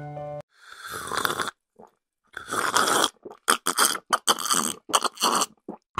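Cartoon drinking sound effect: two longer slurping sips, then a quick run of short gulps as a glass is drained.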